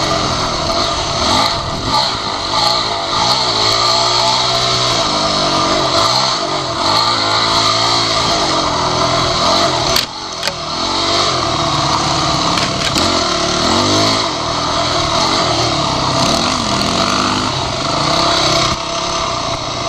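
Dirt bike engine running under load on a trail ride, its pitch rising and falling continuously as the throttle is opened and closed. There is a sharp knock with a brief drop in level about halfway through.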